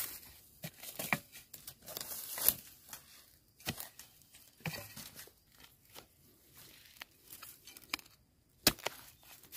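Plant stems snapped off by hand amid rustling foliage: irregular tearing and crackling, with a sharp snap near the end.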